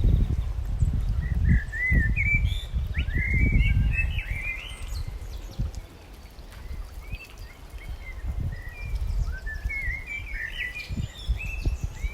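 Small songbirds chirping in short twittering phrases, in two bouts with a pause between, over a low rumbling noise.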